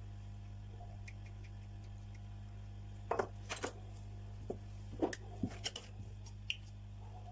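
A few small, sharp clicks and taps of hand tools handled against a phone on a repair bench, in clusters about three and five seconds in and once more near the end, over a steady low hum.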